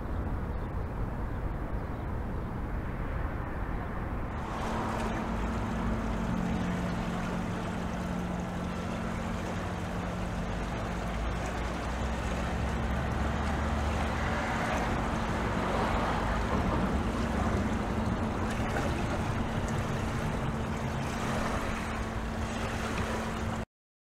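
A boat's engine droning steadily, with two low steady hum tones, over a broad background wash of water and city noise. All sound cuts off suddenly near the end.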